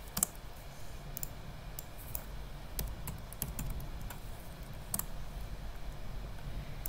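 Computer keyboard keystrokes and mouse clicks, sparse and faint, with a sharper click just after the start.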